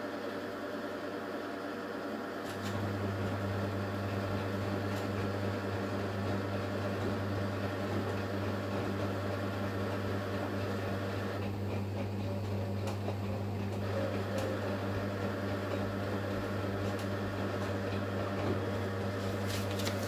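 Candy Superautomatic 98 front-loading washing machine in its wash phase. About two and a half seconds in, the drum motor starts with a steady hum and turns the wet towels through the water.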